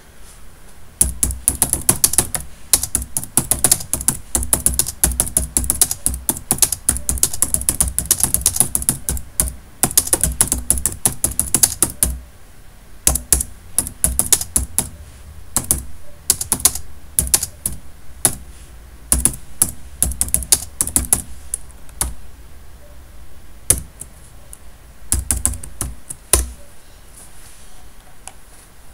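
Typing on a computer keyboard. A fast, steady run of keystrokes lasts about the first twelve seconds, followed by slower, scattered keystrokes with short pauses. The typing stops a couple of seconds before the end.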